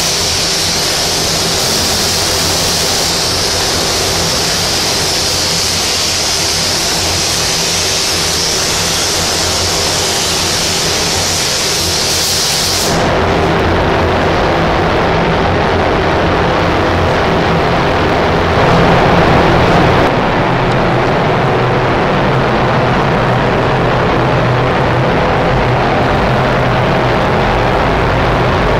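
Gravity-feed paint spray gun hissing steadily as compressed air atomises paint onto a car panel. The hiss stops abruptly about thirteen seconds in, leaving a steady, duller rush of air noise with a low hum.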